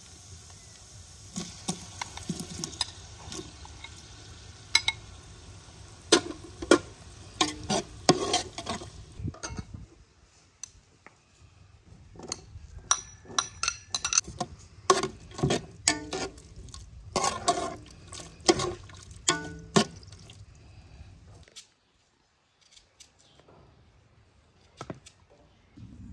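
Metal ladle and spoon clinking against a glass bowl and a large aluminium pot as chopped ingredients are scooped into the pot. Sharp clinks come in quick irregular runs and stop a little after twenty seconds.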